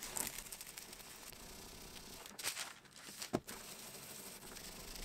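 Faint rustling of greaseproof paper as a household iron is slid over it, pressing down a bubble in wood veneer, with two brief knocks in the middle.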